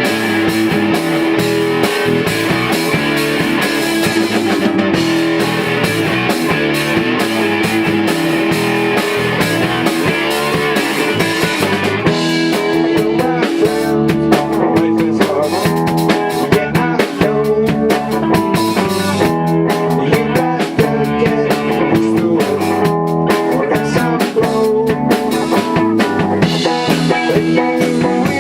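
Rock band playing on drum kit and guitars. A steady cymbal beat runs through the first half, and about twelve seconds in the drumming thins out and the texture breaks up.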